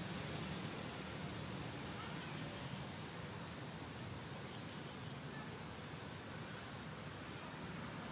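Insects chirping in a steady, even rhythm of about six high-pitched pulses a second, over a continuous higher insect hiss.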